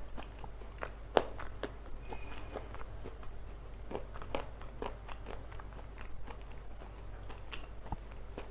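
Close-miked biting and chewing of a hard, crunchy chunk sold as 'black stone': irregular sharp crunches and crackles, the loudest about a second in, over a steady low hum.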